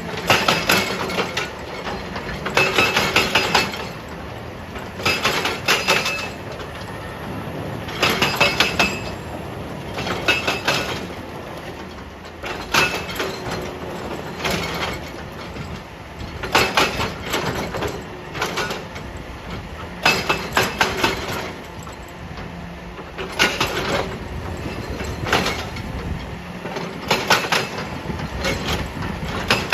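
Excavator working rock: its engine runs steadily under repeated short bursts of metallic clanking and clinking, about one burst every two to three seconds, each with a ringing steel tone.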